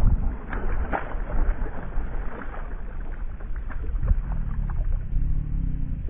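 A small largemouth bass splashing at the surface as it is reeled in beside a kayak, with splashes near the start and again about four seconds in. A steady low rumble of wind on the microphone runs underneath.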